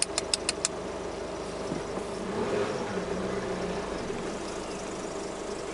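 An engine idling with a steady hum, and a rapid run of about five sharp clicks in the first second.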